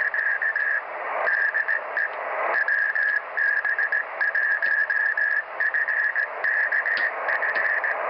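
Microwave ham radio CW signal received by rain scatter: a Morse code tone keyed on and off, heard through a receiver over steady hiss, the signal bounced off rain cells.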